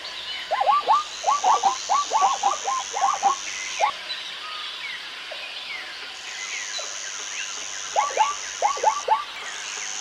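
Zebra calling: a quick run of about a dozen short notes, each dropping in pitch, then a shorter run of five near the end. Between the runs are a steady high hiss that stops and starts and scattered small chirps.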